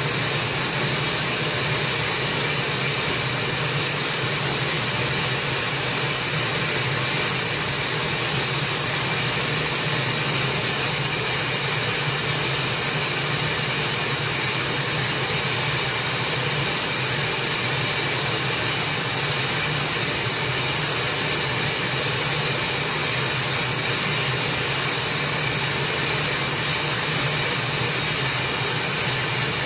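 Steady radio static: an SDR receiver tuned to 410 MHz, hissing with no signal on the channel because the transmitter has not yet started.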